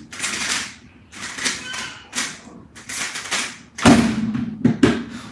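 Plastic 3x3 speedcube being turned very rapidly, a quick stream of clacking and rattling turns. About four seconds in the solve ends with a loud thud as the cube is put down on the desk and the timer is stopped, followed by a couple of lighter knocks.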